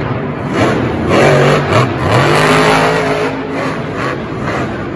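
Monster truck engine revving hard, its pitch rising and falling several times in quick succession.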